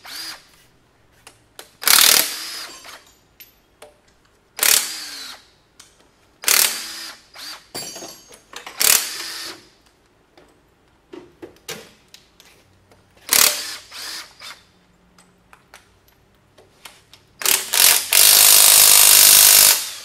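Cordless impact wrench hammering bolts loose on a Ford 289 V8 cylinder head: a string of short bursts, each under a second, then one longer burst of about two seconds near the end.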